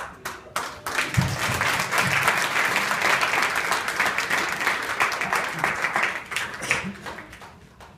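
A roomful of people applauding: a few scattered claps, then full, steady applause from about a second in that dies away near the end.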